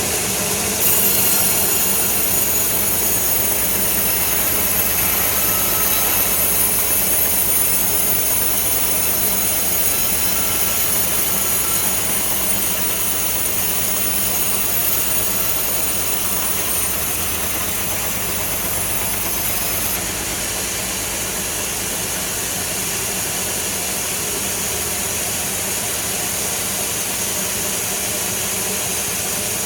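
Sawmill saw and machinery running steadily while cutting timber, with a high whine that starts about a second in and stops about twenty seconds in, where the sound eases slightly.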